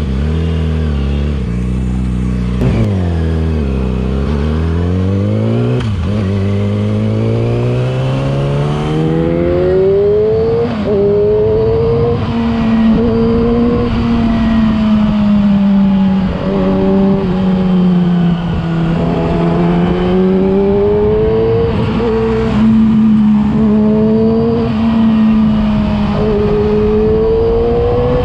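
Yamaha R6 inline-four sport bike engine through a LeoVince aftermarket exhaust, heard while riding. The engine note falls for the first few seconds, climbs steadily as the bike accelerates, then holds at high revs, rising and easing.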